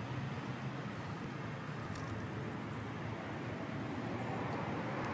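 Steady outdoor street background: a continuous hum and hiss of distant road traffic, with no distinct events.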